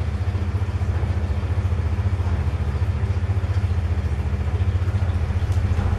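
A small motor running steadily with a fast, even low throb.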